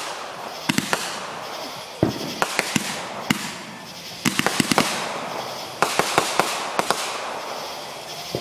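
Consumer firework going off: clusters of sharp cracks and pops come every second or so over a steady hiss as it fires rising streaks of sparks.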